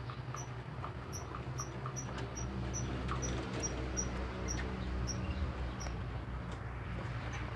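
A short, high chirp repeating evenly about two to three times a second, stopping near the end, over a steady low hum, with faint scattered clicks of small rabbits chewing fresh vegetables.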